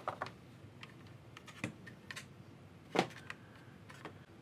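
Scattered light clicks and knocks from handling a plastic magnifying lamp head as it is lifted out of its molded pulp packaging tray, the loudest knock about three seconds in.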